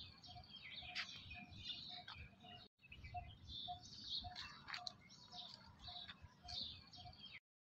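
Faint birdsong outdoors: many short high chirps, with one bird repeating a short low note about twice a second, over low wind rumble on the microphone. The sound drops out for a moment near the middle and cuts off suddenly near the end.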